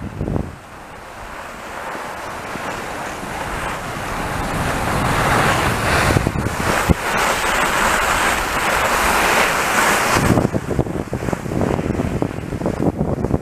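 Cross-country skis hissing over the snow as the skier glides along the track, mixed with wind on the microphone. The hiss grows steadily louder for most of the stretch, then about ten seconds in gives way to a choppier, lower rumble.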